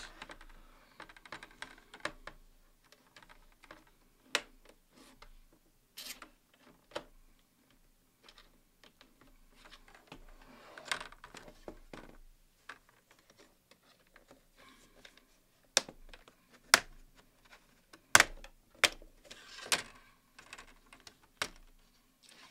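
Plastic snap clips of an Acer Chromebook 15 CB3-532's screen bezel clicking loose one after another as a plastic spudger pries along the seam, with softer plastic-on-plastic scraping between the clicks. The sharpest snaps come in a run near the end as the last clips let go.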